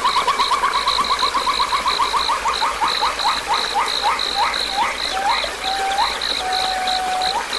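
A run of short whistled calls, rapid at first (about ten a second), that slows down; each note stretches into an upward sweep and then a long, level, slightly falling whistle near the end. Over it a high note pulses steadily about three times a second.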